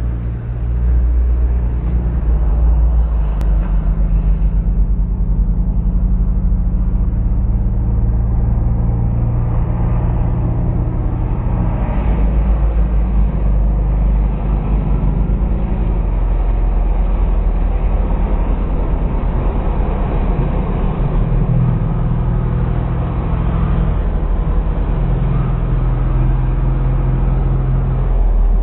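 Sport motorcycle engines running through the corners, heard as a loud, continuous low engine sound whose pitch holds and then shifts.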